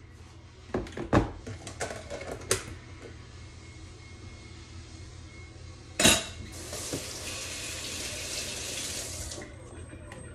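A utensil knocking and clinking against a roasting pan and plastic tub, several sharp knocks in the first few seconds. About six seconds in comes a loud clunk, then a kitchen tap runs into a stainless steel sink for about three seconds before it is shut off.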